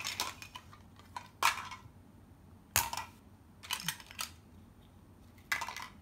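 Hard plastic toy food pieces clattering as they are handled and dropped into a plastic basket, in a handful of short rattles about a second apart.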